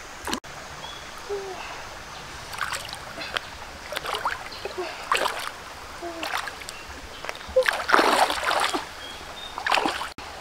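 Hands splashing and scooping in shallow stream water while gathering freshwater snails, with a splash every second or so over running water; the biggest splash comes about eight seconds in.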